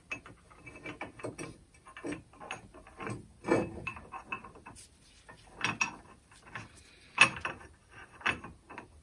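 Small steel angle-grinder parts and bearings handled on the steel plate of a workshop press: irregular clicks, clinks and light knocks of metal on metal, with a few louder knocks partway through.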